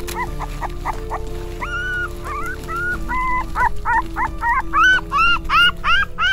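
A puppy whimpering and yelping in a quick series of short, high cries that come faster and louder toward the end, over background music with steady held notes.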